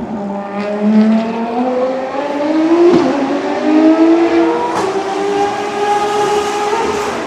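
Ferrari FXX K track cars with V12 engines running on track at high revs, several engine notes overlapping. The pitch rises and falls as they accelerate and lift, broken by sharp gear changes.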